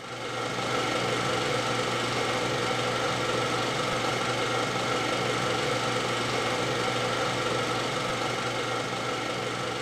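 Steady mechanical whirring hum at a constant pitch, with no change in speed or level.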